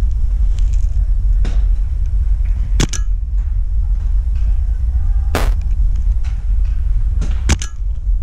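Several sharp pops from a paintball marker being fired, the loudest about five and a half seconds in and two close together near the end, over a steady low rumble of wind on the microphone.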